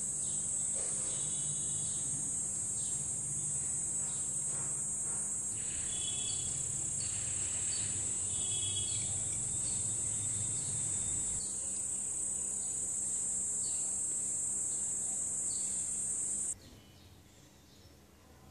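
Insects trilling in one steady high-pitched note that cuts off suddenly near the end, with faint light taps underneath.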